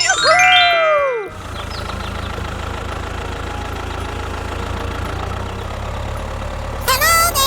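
A loud whistle-like tone that glides up and then down over the first second, then a small engine idling steadily with a constant low rumble. Near the end a wavering high-pitched sound comes in over the engine.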